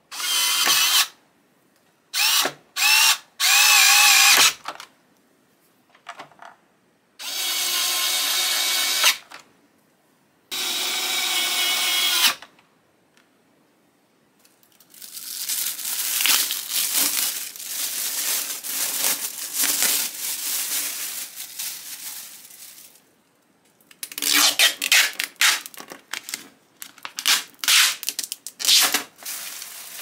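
Cordless electric screwdriver whirring in several short runs, some rising or falling in pitch, as it turns the screws of a coffee machine's housing. Then a long stretch of plastic bag crinkling as a part is unwrapped, and a string of clicks and rustles near the end.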